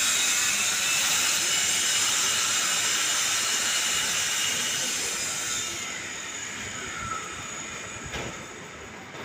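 Steady high hiss with faint whining tones from running machinery. About halfway through it drops slowly in pitch and fades, and a few soft knocks come near the end.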